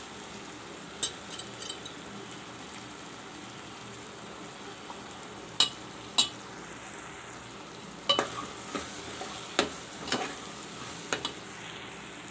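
Okra, tomato and mutton sizzling in a metal pot while a steel spoon stirs them, clinking sharply against the pot several times over a steady hiss.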